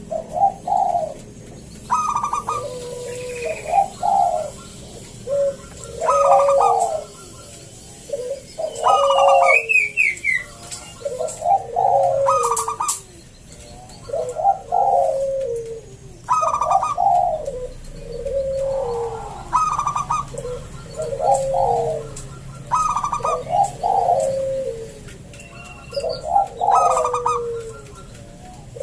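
Zebra dove (perkutut) cooing its song over and over: short phrases of falling coos repeating every second or two, in a thick, big voice.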